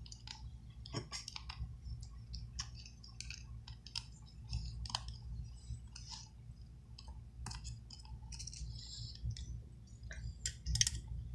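Faint, irregular small clicks and ticks of hand tools such as tweezers and pry tools working on a smartphone screen assembly, over a low steady hum.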